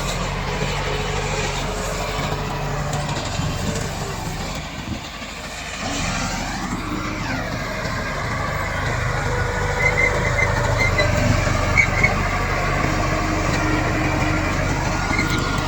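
Komatsu D68 bulldozer's diesel engine running, easing off briefly about a third of the way in and then picking up again, with a few short high squeaks later on.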